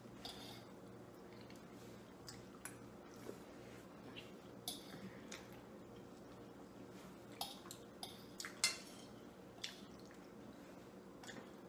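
Metal forks tapping and scraping on ceramic dinner plates: scattered light clinks, with one sharper clink about three-quarters of the way through.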